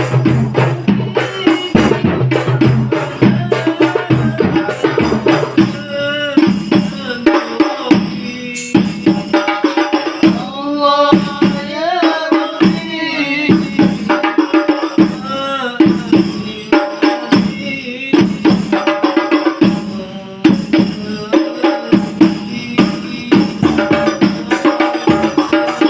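Rebana frame drum ensemble playing a dense, fast rhythm, with a solo voice singing a melismatic line over the drums in the middle.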